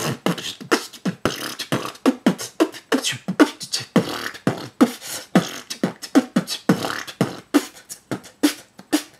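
Human beatbox: a man making a fast drum beat with his mouth, with bass-drum thumps that drop in pitch between sharp snare and hi-hat clicks, about four strokes a second.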